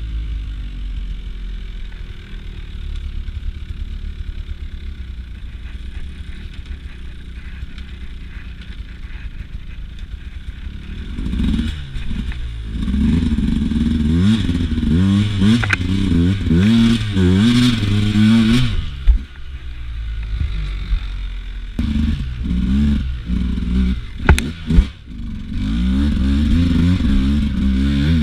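Beta RR 200 two-stroke enduro motorcycle engine under way, running at low revs for the first ten seconds or so, then revving up and down hard as the throttle is worked. A couple of sharp knocks come about two thirds of the way through.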